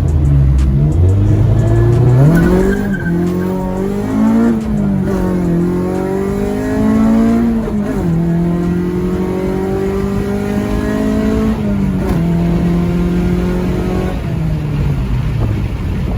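Car engine accelerating hard through the gears: its pitch climbs in each gear, then drops sharply at each of several upshifts.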